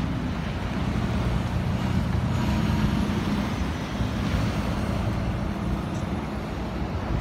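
Road traffic passing close by on a slush-covered street: car engines and a box truck running, with tyres hissing through the wet snow and swelling as vehicles go by.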